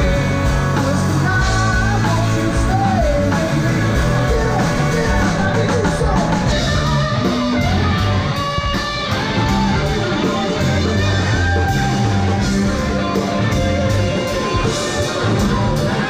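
Rock band playing, with singing over electric guitar, bass and drums.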